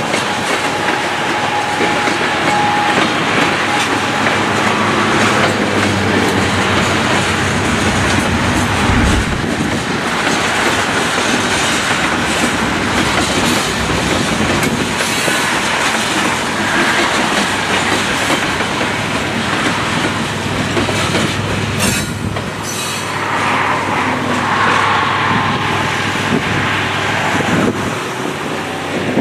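Freight cars rolling past at close range, their wheels clattering over the rail joints, with a thin wheel squeal in the first few seconds. The sound eases near the end as the last car passes.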